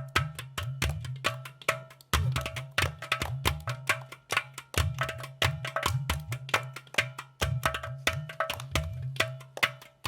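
Udu clay pot drums played in a steady rhythm: deep, hollow low booms mixed with sharp taps on the clay body, several strikes a second.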